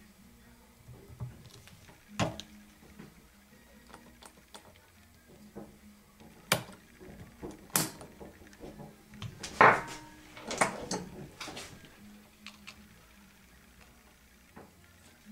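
Scattered metal clicks and clanks as tools and bicycle crank parts are handled during crank removal. The loudest is a ringing clank about ten seconds in.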